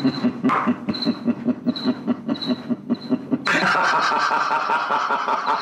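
A man laughing in short rhythmic bursts, about five a second, which turn louder and more continuous about three and a half seconds in.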